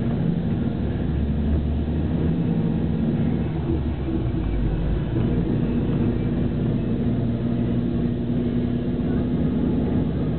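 PKS bus's diesel engine running steadily under way, with road noise, heard from inside the bus.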